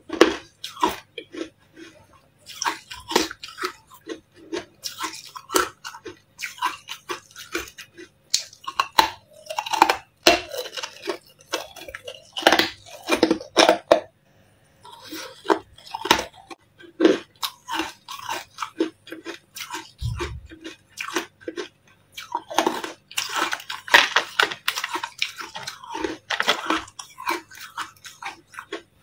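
Close-up crunching and chewing of white, frosted carbonated ice cubes: bites followed by fast, irregular crackling crunches as the ice is chewed, with a short lull about halfway through.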